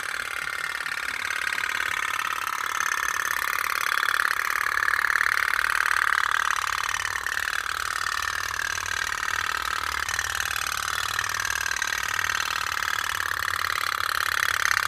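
Tin pop-pop steam toy boat running on its candle-heated boiler: a rapid, steady putt-putt buzz whose tone slowly rises and falls every few seconds.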